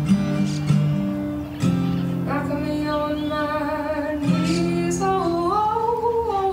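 Acoustic guitar playing slow strummed chords while a woman sings long held notes, her melody sliding up and back down near the end.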